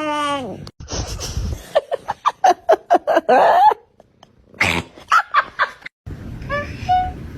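A cat meowing: a drawn-out falling meow at the start, then a rapid string of short cries, with more brief meows later on.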